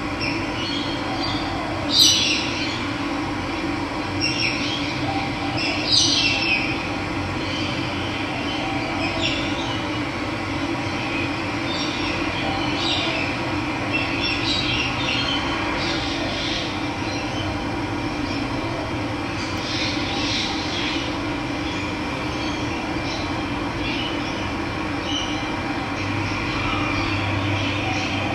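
Steady rush of running water, with birds chirping now and then over it; the loudest calls come about two and six seconds in.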